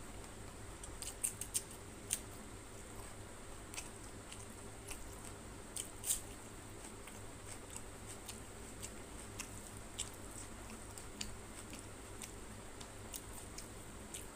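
Eating by hand, with irregular wet clicks and smacks from chewing and from fingers mixing rice on the plate. The loudest cluster of clicks comes about a second in, with another near six seconds, over a faint steady hiss.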